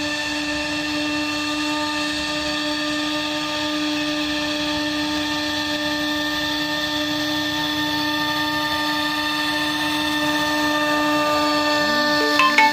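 The RC boat's electric drive motor whining at a steady, unchanging pitch under constant throttle as the boat cruises. A couple of brief clicks come near the end.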